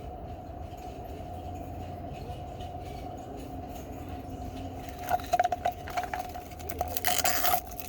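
Plastic packaging handled and crinkled: a cluster of short crackles, then a louder continuous rustle near the end, over a steady background hum.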